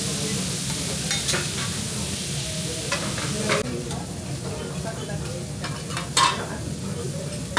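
Food sizzling on a teppanyaki hot plate, with metal spatulas clinking and tapping on the griddle. The sizzle drops off sharply about halfway through, and a louder clack comes near the end.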